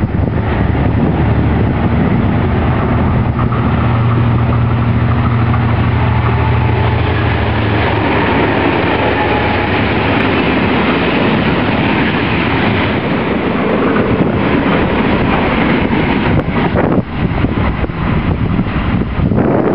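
Diesel-hauled freight train passing close by: a steady low diesel engine hum for the first several seconds, then the noise of the wagons rolling over the rails. Near the end, wind buffets the microphone.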